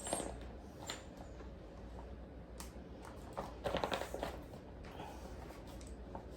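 Handling noise: scattered rustles and light taps, busiest a little past the middle, over a low hum.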